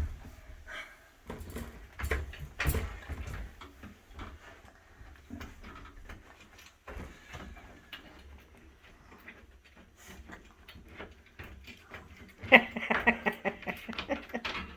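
Scattered handling knocks and clicks on the wooden bed frame, then near the end a loud burst of about two seconds from a DeWalt cordless impact driver hammering on a bolt.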